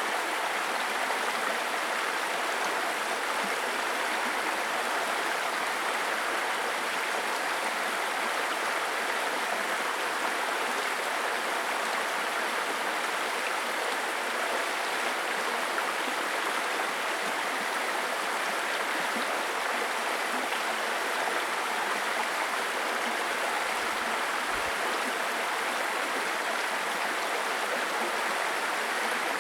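Babbling brook: shallow stream water running and splashing over stones, a steady, even rush with no change.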